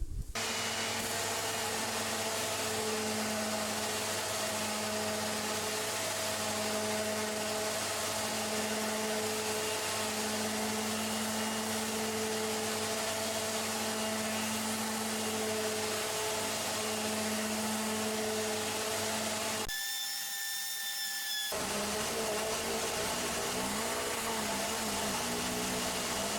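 Erbauer ERO400 125 mm orbital sander running steadily against the wooden handrail, sanding out dark marks in the old wood. A steady motor hum sits under the sanding noise and drops out for about two seconds near the end, then returns.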